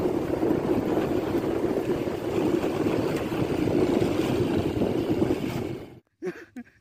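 Steady rush of wind on the microphone mixed with motorcycle engine noise while riding along a dirt track. It cuts off abruptly near the end.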